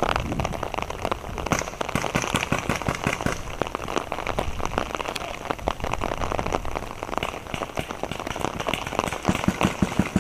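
Steady rain pattering, with dense irregular drop ticks close to the microphone; about nine seconds in, a quick run of louder knocks.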